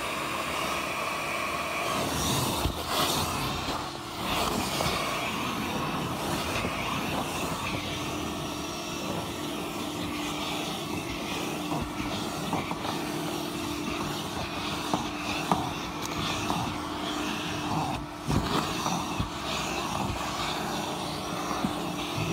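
Car wash vacuum running: a steady rushing noise, with a hum that comes in about eight seconds in and scattered light knocks from handling.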